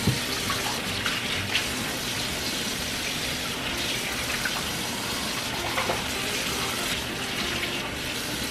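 Bathroom sink tap running steadily while makeup brushes are rinsed under the stream, with a few light knocks of handling.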